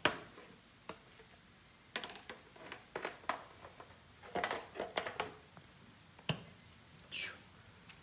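Hard plastic dirt-bike rear fender being handled and offered up to a bike's metal rear frame: scattered clicks, taps and knocks, some in quick clusters, with a short falling scrape about seven seconds in.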